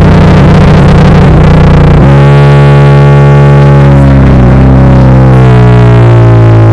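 Loud background music made of sustained, heavily distorted chords, changing chord about two seconds in and again past four seconds.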